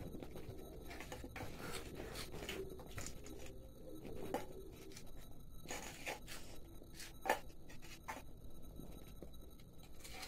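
Faint scraping and scattered short clicks of small steel bowls of snacks being handled and shifted on a table, with a sharper click about seven seconds in.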